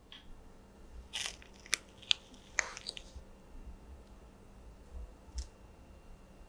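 A metal spoon scooping firm ice cream out of a wooden masu cup: a crunchy scrape with several sharp clicks over a couple of seconds, then one more short tap a few seconds later.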